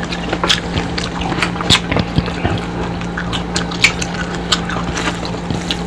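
Close-up eating sounds: fingers picking apart crisp fried tilapia, and wet mouth clicks and smacks while chewing. They come as an irregular scatter of short, sharp, wet ticks over a steady low hum.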